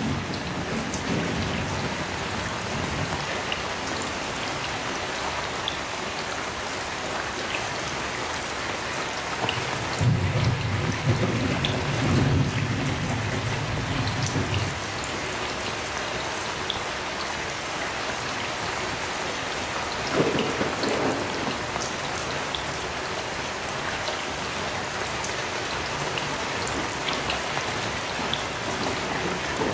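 Heavy rain falling steadily, with rumbles of thunder, the longest from about 10 to 15 seconds in and a shorter one near 20 seconds.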